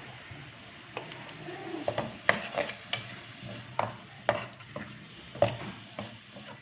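Liver (kaleji) frying in a pan with a steady sizzle, stirred with a spoon that scrapes and clicks against the pan irregularly from about a second in.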